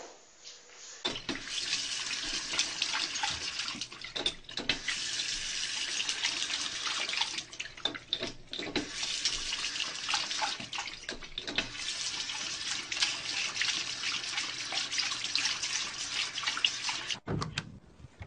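Water running from a sink tap as a loud steady splash and hiss, with a few short breaks. It starts about a second in and cuts off suddenly near the end.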